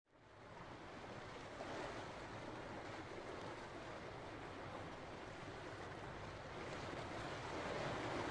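Steady rush of water and wind past a sailboat under way, fading in over the first half second.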